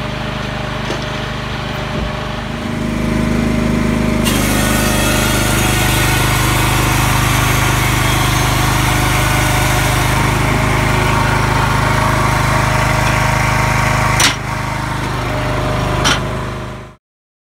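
Kohler 14 hp gasoline engine of a Range-Road RR20T-4 firewood processor running steadily at close range, growing louder about three seconds in. Two sharp knocks sound near the end before the sound cuts off.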